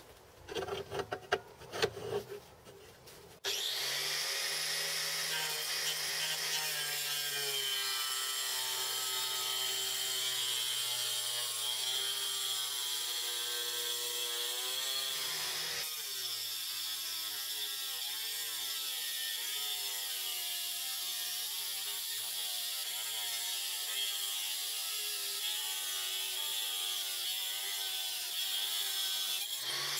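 A few knocks and clicks, then about three and a half seconds in an angle grinder starts and runs steadily as its disc cuts along a long marble-patterned board: a loud hissing grind over a motor whine whose pitch wavers as the cut loads it.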